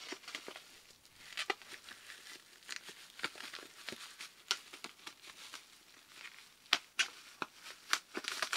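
Bubble wrap crinkling and crackling as hands handle and pull at a wrapped box, an irregular run of sharp crackles with the loudest ones in the second half.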